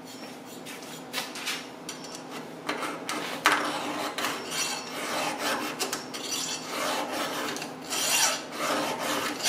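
A fresh round chainsaw file rasping across the cutter teeth of a Stihl saw chain held in a vise: a run of push strokes sharpening the chain, quiet at first and louder near the end.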